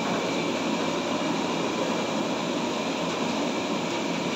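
Steady, even rushing roar of a cooking fire under a big aluminium pot of goat trotter curry that is on the boil and steaming.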